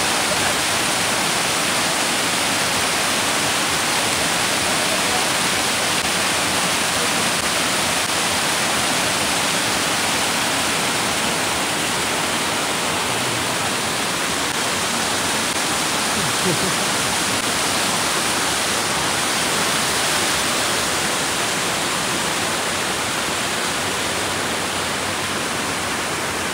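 Steady, unbroken rush of fast-flowing water, as from a mountain creek or waterfall close by.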